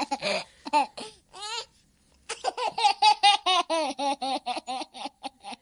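A young child laughing: a few high-pitched laughs, a short break about two seconds in, then a long run of quick, repeated laughs, about six a second.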